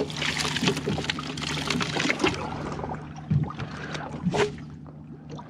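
Water pouring and trickling from a dip net of live baitfish (greenbacks) lifted out of a boat's livewell for live chumming, with a couple of short sharper splashes about three and four seconds in, over a steady low hum.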